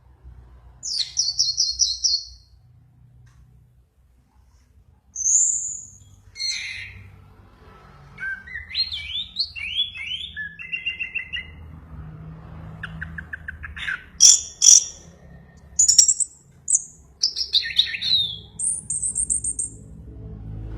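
Songbird singing in separate bursts: fast buzzy trills, sharp chirps and short rising notes, with brief pauses between phrases. The singing is vigorous and full.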